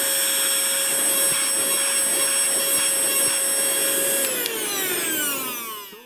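Cordless handheld car vacuum running with its nozzle on carpet: a steady high motor whine over rushing air. About four seconds in the whine slides down in pitch and fades as the motor winds down.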